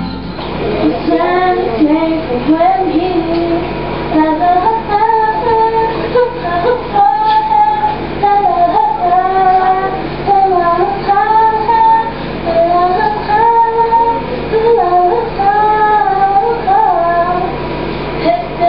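Young female voices singing a song together, the melody rising and falling without pause.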